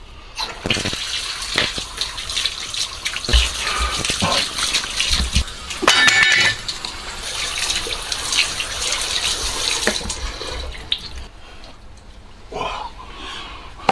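Tap water running into a sink as a raw leg of lamb is rinsed under it, the splash shifting as the meat is moved in the stream. The water stops about ten seconds in.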